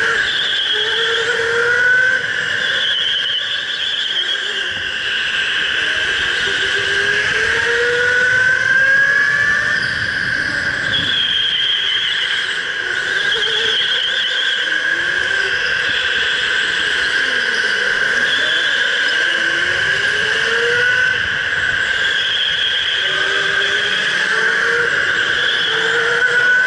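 Electric go-kart motor whining at speed, its pitch climbing several times as the kart accelerates and dipping once briefly as it slows and picks up again, over a steady high-pitched whine.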